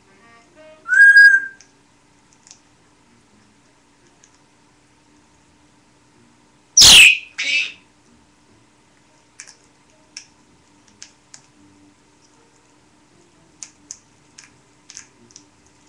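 Pet parrot whistling: a short whistle about a second in, then a loud shrill whistle sliding steeply down in pitch about seven seconds in, followed at once by a shorter second one. Soft clicks and little chirps come after.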